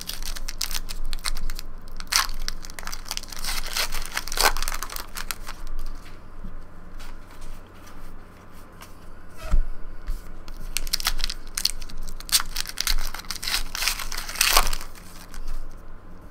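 Plastic wrappers of trading card packs being torn open and crumpled: two bouts of crinkling and crackling, with quieter shuffling of the cards between them.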